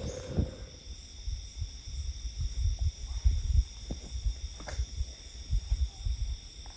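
Insects chirring steadily at several high pitches, over irregular low thumps and rumble.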